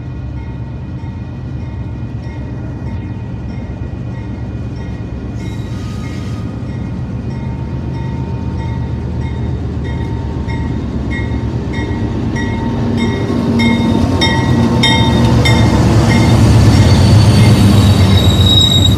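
Diesel freight locomotives (GE units) approaching and passing close by, their engine rumble growing steadily louder toward the end. A grade-crossing bell rings a steady, rapid ding throughout.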